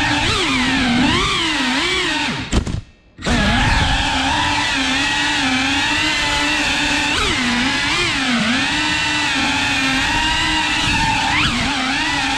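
FPV quadcopter's electric motors and propellers whining, the pitch rising and falling as the throttle changes. The sound drops away almost entirely for about half a second near the three-second mark, then comes straight back.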